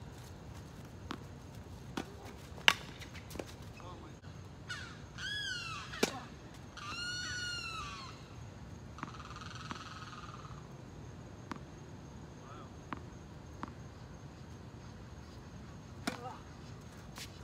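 Tennis balls struck by racquets and bouncing on a hard court: sharp pops, the loudest about three seconds in, with more near six and sixteen seconds. Between about five and eight seconds a few high squeaky calls rise and fall.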